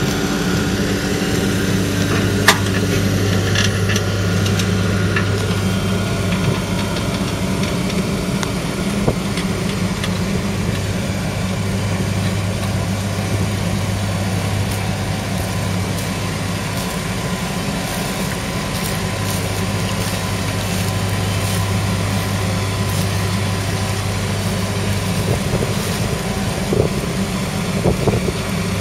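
Kubota M7171 tractor's 6.1-litre diesel engine running steadily under load as it pulls a Kverneland reversible plough through the soil. A few brief clinks are heard about 2.5 s in, about 9 s in and near the end.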